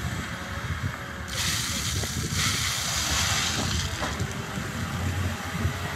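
JCB backhoe loader's prototype hydrogen-fuelled combustion engine running under load with a low rumble. From about one second in until about four seconds in, a loud hiss of gravel pouring from the tipped front loader bucket onto the stockpile.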